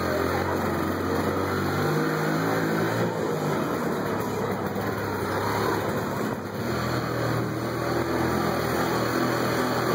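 Taxi's car engine running at low speed, heard from inside the cabin, its pitch shifting a couple of times.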